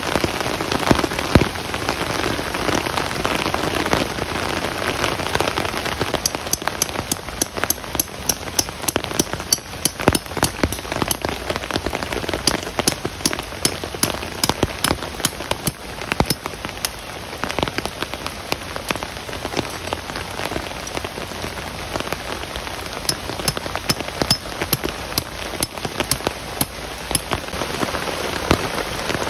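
Heavy rain falling steadily, with many individual drops striking close by as sharp ticks over the constant hiss.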